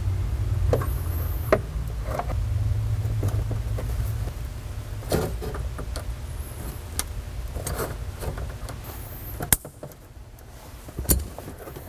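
Scattered clicks and short rustles of hands working wires and small plastic parts, over a low steady hum that weakens about four seconds in and drops away near the end.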